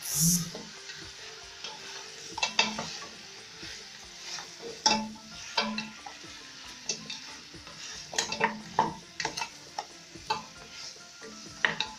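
Wooden spoon stirring lamb trotters and onions as they fry in a pot: a steady sizzle with irregular scrapes and knocks of the spoon against the pot.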